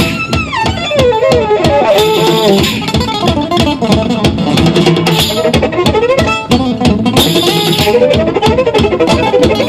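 Fast, fluttering string-instrument music: a melody full of sliding notes over quick plucked notes, in a gypsy-music style.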